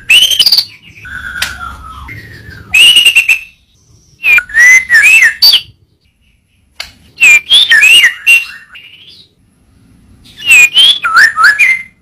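White-rumped shama (murai batu) singing: a series of loud whistled phrases with fast warbles and sliding notes, broken by short pauses about six and ten seconds in.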